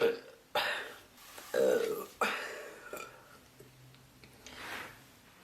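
A woman burping repeatedly from a bloated stomach: four burps in quick succession over the first two and a half seconds, the loudest and longest about a second and a half in, then a fainter one near the end.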